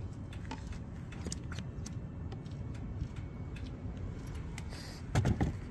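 Steady low outdoor rumble with scattered light clicks and rustles, and a short, louder clatter of knocks about five seconds in.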